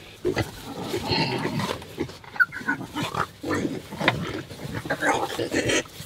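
Several Berkshire pigs grunting irregularly as they jostle in a crowded pen.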